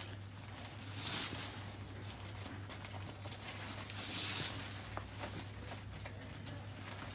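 Soft silk saree fabric rustling as it is flipped over and smoothed flat by hand, with two louder rustles about a second in and about four seconds in, over a steady low hum.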